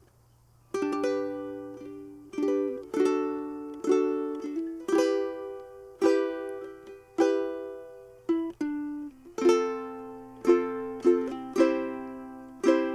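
Ukulele chords strummed in a steady song rhythm, starting about a second in, each strum ringing out and fading before the next.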